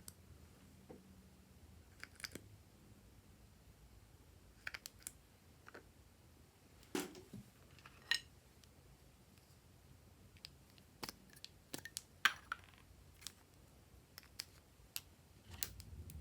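Faint, scattered clicks, taps and short crackles of glossy slime being handled and mixed by hand.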